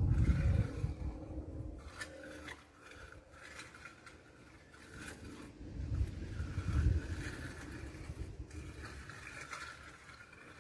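Scraping and rubbing noises in stretches, with a few sharp clicks about two and five seconds in, over gusts of low rumble that are loudest at the start and again around the middle.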